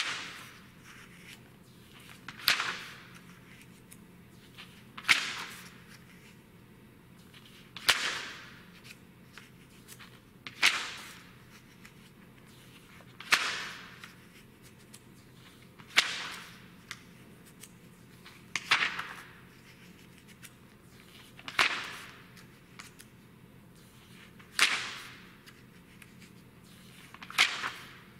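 Pages of a thick glossy print magazine being turned by hand, one at a time. Each turn is a quick swish and flap of paper, about eleven turns evenly spaced every two and a half to three seconds.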